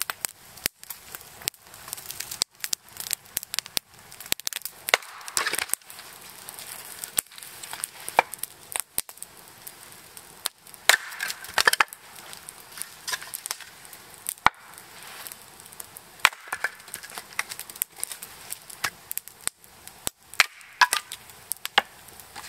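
Hatchet chopping and splitting kindling on a log stump used as a chopping block: many sharp, irregularly spaced chops and cracks of wood splitting.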